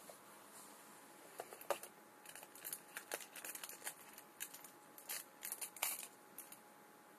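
Small plastic phone parts, spare batteries among them, being picked up and set down on a wooden table: a scattered run of light clicks, taps and rustles from about a second and a half in until about six seconds.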